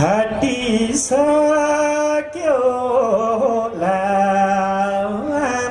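A man singing into a microphone, holding long notes that step up and down in pitch, at the start of a Nepali song.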